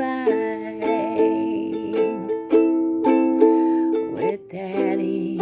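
Ukulele strummed in a steady rhythm of repeated chords: the closing bars of a song in A minor, with a brief break a little past four seconds in.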